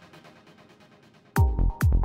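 Electronic background music. A soft passage fades down, then about a second and a half in a heavy kick-drum beat comes in, about two beats a second.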